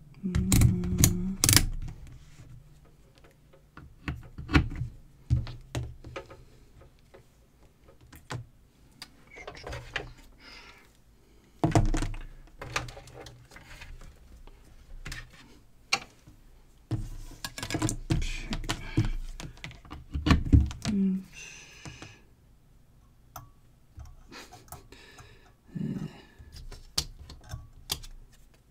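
Irregular clicks, taps and knocks of a multimeter and its test leads being handled on a tabletop: the meter set down and alligator clips fitted onto the bulb's circuit board. There are clusters of sharp knocks about a second in, around twelve seconds in and again in the late teens, with quieter stretches between.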